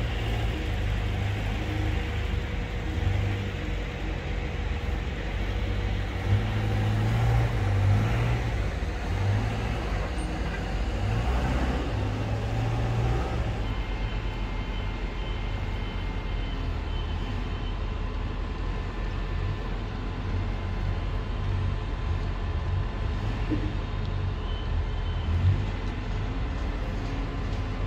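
Steady low background rumble of a railway station construction site, with a couple of faint knocks and some faint steady tones later on.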